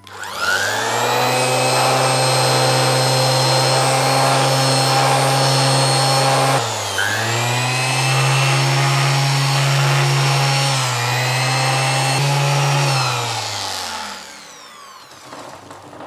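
Handheld electric sander starting up and running steadily while it is pressed against a reinforced work-sock heel in an abrasion test. Its pitch sags briefly twice, about six and a half and eleven seconds in, as it is bearing down, then it is switched off and spins down near the end.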